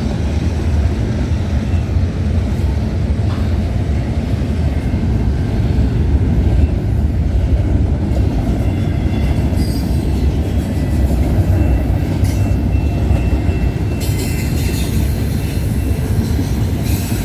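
CPKC manifest freight train rolling past, its cars and wheels keeping up a steady heavy rumble on the rails. A thin, high wheel squeal sounds for a couple of seconds about twelve seconds in.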